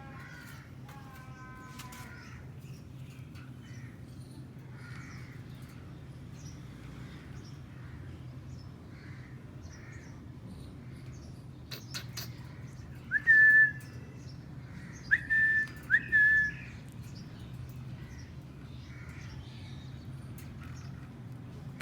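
Parakeets calling: a couple of harsh squawks at the start and soft scattered chirps. Past the middle come three loud, short whistles, each sliding up and then held. A steady low hum runs underneath.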